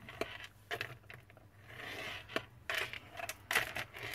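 Scoring stylus drawn down a groove of a scoring board, scraping across cardstock to crease a fold line. One longer scrape comes around the middle, with several light clicks and taps of the tool and the paper around it.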